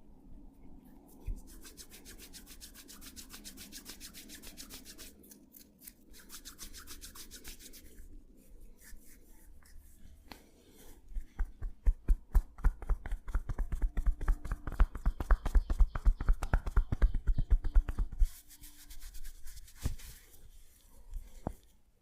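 Hands briskly rubbing through hair and scalp in a head massage. About halfway through this gives way to a fast run of sharp hand taps, about five a second and louder than the rubbing, which stops a few seconds before the end.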